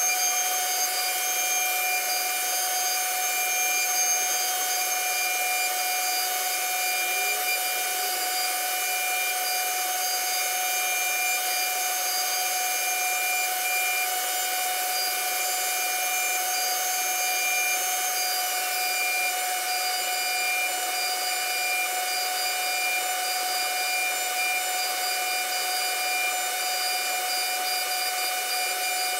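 CNC router spindle running at speed as its bit engraves grooves in a wooden panel: a steady whine of several high tones over the hiss of the cut. The highest tone drops out about two-thirds of the way through.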